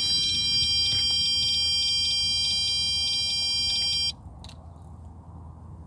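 Electronic carp bite alarm screaming out a continuous, fast-pulsing high-pitched tone: a screamer, a carp running hard with the line. It cuts off suddenly about four seconds in as the rod is picked up off the alarm.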